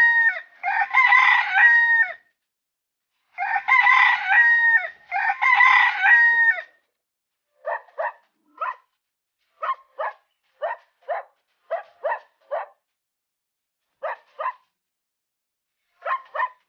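Rooster crowing four times in two back-to-back pairs, the first crow already under way. From about seven seconds in, this gives way to a run of short, sharp animal calls in twos and threes.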